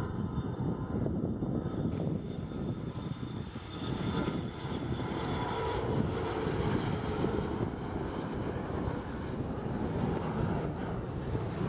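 Jet noise from a Bombardier CRJ regional jet's two rear-mounted turbofans at takeoff power, steady and heavy in the low range as the jet lifts off and climbs away.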